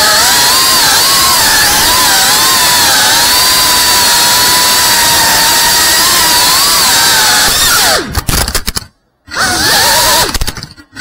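FPV quadcopter's brushless motors whining, the pitch wavering up and down with the throttle. About eight seconds in the whine breaks up and cuts out twice, briefly falling to near silence, before picking up again.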